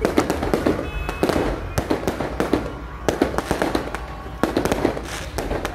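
Aerial fireworks bursting overhead: sharp bangs in quick, uneven succession.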